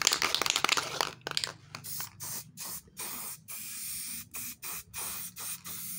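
Aerosol spray-paint can spraying in a series of short hissing bursts, about two a second with brief breaks between them, coating a small steel bracket. A quick clicking rattle comes first, in about the first second.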